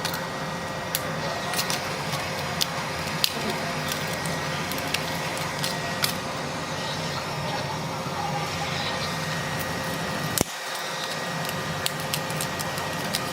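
Small hand tools clicking and tapping against a phone, with sharp irregular clicks roughly once a second over a steady hum and hiss. About ten seconds in the background changes abruptly.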